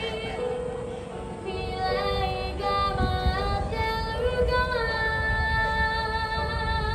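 Music: a melody of long held notes over a steady drone, with a low rumbling haze underneath.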